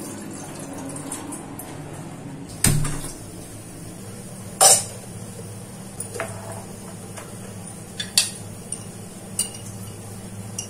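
Stainless-steel kitchen vessels and a metal-lidded jar knocking and clinking as they are handled: about five sharp clanks, the loudest about four and a half seconds in, over a steady low hum. At the start, water is poured into a steel pot.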